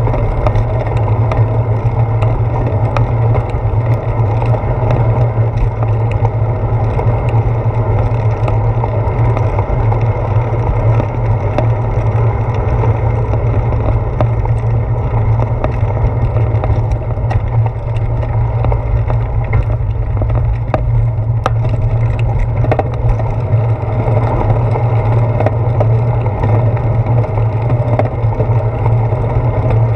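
Steady low rumble of a bicycle rolling over pavement, heard through a handlebar-mounted GoPro in its housing: tyre and road vibration carried up the handlebar, with small scattered clicks and rattles over bumps.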